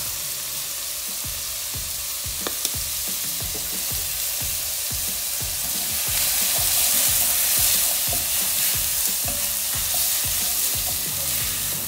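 Chopped vegetables sizzling in hot olive oil in an enamelled cast-iron pot while a wooden spoon stirs them, scraping and knocking about twice a second. The sizzle swells a little in the middle.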